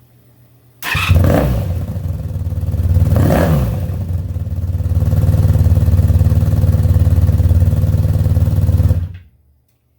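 Honda VF500 Interceptor's V4 engine starting about a second in, blipped up twice, then running steadily before being switched off near the end. It is running after a repair to the coil-pack connector wiring that had left the front cylinders without spark.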